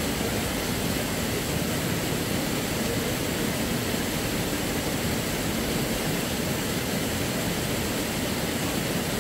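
River water rushing over rocks: a steady, unbroken rushing noise.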